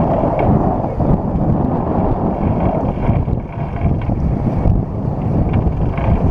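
Steady wind buffeting the microphone aboard a sailing yacht under way, a loud low rumble.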